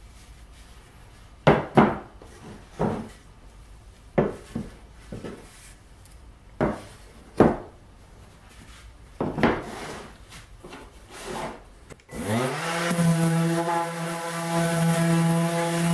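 Wooden slats knocked and set down on a wooden workbench: about seven sharp knocks over the first ten seconds. About twelve seconds in, a Black+Decker random orbital sander switches on. Its motor rises in pitch and settles into a steady whine with a hiss as the pad sands the slat.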